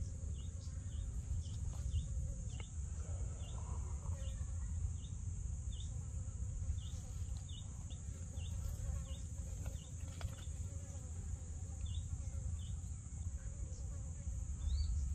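Steady high-pitched insect drone with short chirps repeating every half second or so, over a low steady rumble.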